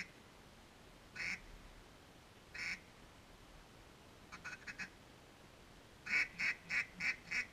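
Duck quacking: two single quacks, then a quick soft run of four about four seconds in, then five loud, evenly spaced quacks near the end, about three a second.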